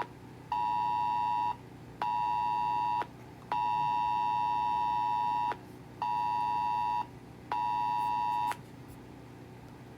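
Emergency alert test tone, the two-pitch attention signal in the Wireless Emergency Alert cadence: five loud beeps of one second, one second, two seconds, one second and one second, with half-second gaps, stopping about eight and a half seconds in.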